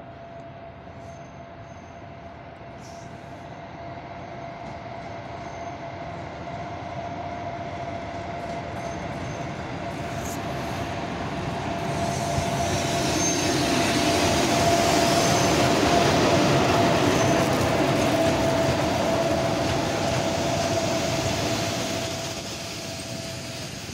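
ChS4 electric locomotive hauling a passenger train into a station. Its running and the rolling of the train grow steadily louder, are loudest about two-thirds of the way in, then ease off as the coaches roll past near the end. A steady whine runs through it all.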